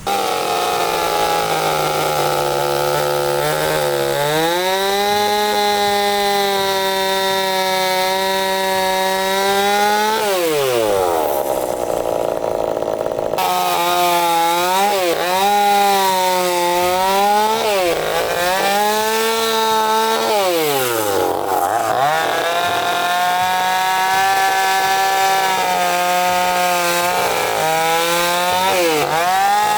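Chainsaw running at high speed while cutting into a wooden log, widening carved grooves. Its pitch holds steady for long stretches and drops sharply, then climbs back, several times as the throttle is eased off and squeezed again.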